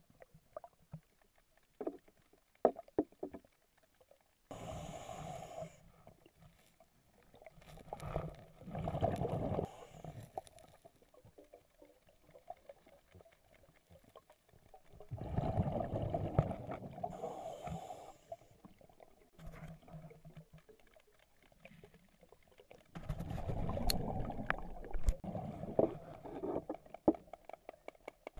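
A scuba diver breathing through a regulator underwater: a hiss of inhalation and a bubbly rush of exhaled air come in surges every several seconds, with small clicks and knocks from gear on the rocks between breaths.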